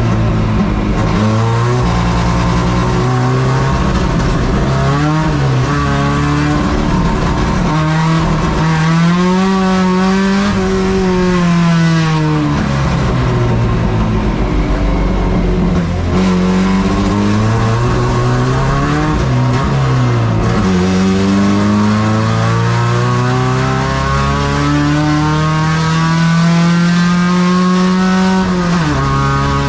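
Chevrolet Caravan's carbureted four-cylinder engine at racing speed, heard from inside the car. It revs up and lets off in turn, its pitch climbing and falling several times, with a sudden drop in pitch near the end.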